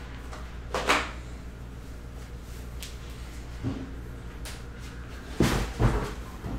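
A few knocks and thumps over a steady low hum: one about a second in, a softer one just before four seconds, and two louder ones about half a second apart near the end.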